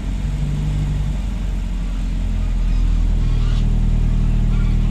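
Marine diesel engine running shortly after a cold start, its revs picking up about three seconds in and then holding steady.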